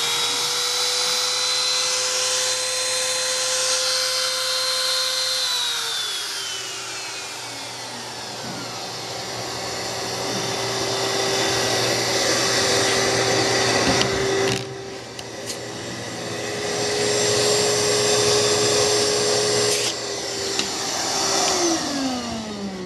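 Homemade CNC router's spindle motor whining steadily over the hiss of cutting carbon fiber. Its pitch steps down about six seconds in, and near the end it winds down with a falling whine.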